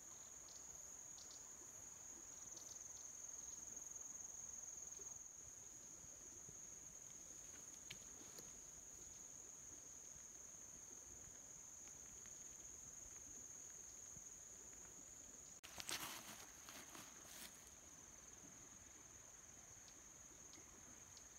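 Faint, steady high-pitched insect trilling, such as from cicadas or crickets, in the vegetation. A short patch of crackling, rustling clicks comes late on.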